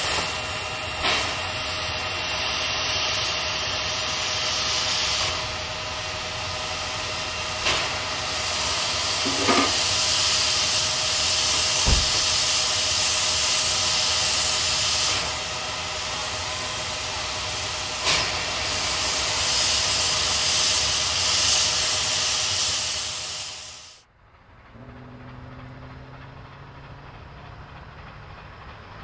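NSW 59 class 2-8-2 steam locomotive 5910 standing with steam hissing loudly and steadily, a few sharp clicks and knocks among it. Near the end the hiss cuts off abruptly to a much quieter, low rumble from the engine working in the distance.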